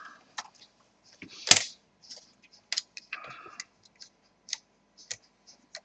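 Plastic clips of an Acer Aspire 7535 laptop's cover strip above the keyboard clicking as it is prised off. One loud snap comes about a second and a half in, followed by a brief scrape and light scattered clicks of plastic being handled.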